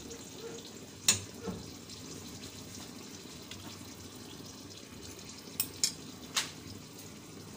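Chicken liver and gizzards simmering in adobo sauce in a pan, a steady low sizzle and bubble, with a few sharp clinks of a metal ladle against the pan: the loudest about a second in, and three more quick ones near the end.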